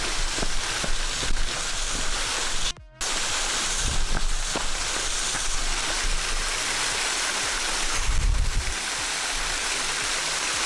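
Waterfall rushing: a steady, even wash of falling water. It cuts out briefly about three seconds in, and a low thump comes about eight seconds in.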